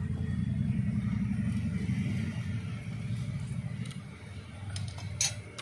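A low rumble that holds for about four seconds and then fades, with a sharp click about five seconds in.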